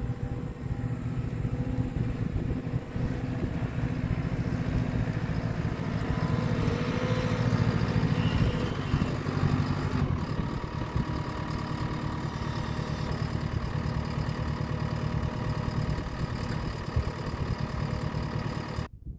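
JCB 330 skid steer's diesel engine running as the machine drives forward carrying a load of fence posts on its forks, loudest about six to nine seconds in as it draws close, then running steadily. The sound drops away suddenly near the end.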